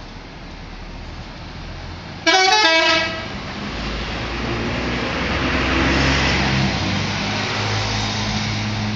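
A Solaris Jaya bus's 'telolet' multi-tone musical horn plays a short stepped tune lasting under a second, about two seconds in. After it, the bus's engine and road noise grow louder, peaking around six seconds in and easing slightly near the end.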